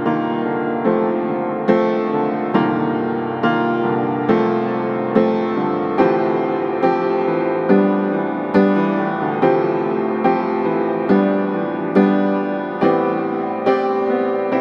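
Background piano music, with notes struck at an even pace of a little more than one a second and ringing on between strikes.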